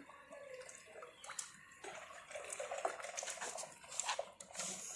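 Water being poured over a pressurised window air conditioner's pipes and coil, splashing and dripping, during a search for a refrigerant leak. It grows denser about two seconds in, with many small spattering clicks.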